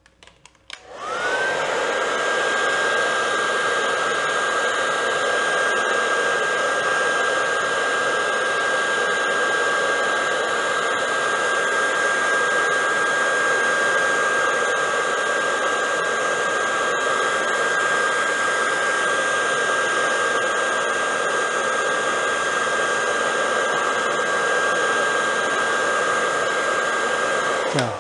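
Hair dryer switched on about a second in, its motor whining up to speed and then running steadily with a constant rush of air, blowing heat on a racket handle to cure the superglue in its cork filler.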